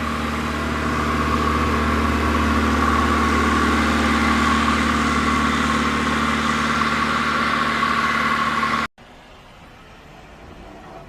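An engine running steadily at a constant pitch, growing a little louder over the first few seconds, then cutting off abruptly about nine seconds in, leaving a much quieter steady hiss.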